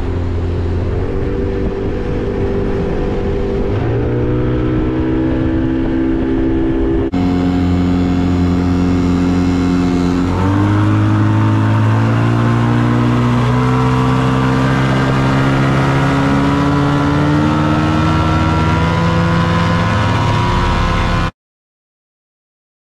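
Boat's outboard motor running at high speed, its pitch climbing steadily as it accelerates, over the rush of water spraying along the hull. It stops abruptly near the end.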